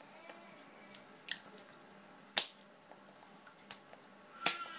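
A handful of sharp taps and claps from hands striking each other and the body while signing in sign language, the loudest about halfway through.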